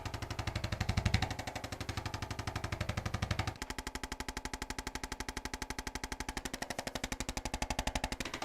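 Rapid, even mechanical pulsing at about ten beats a second, from a motor-driven percussive tool. The deep thud in each beat drops away about three and a half seconds in, leaving a lighter, higher tapping.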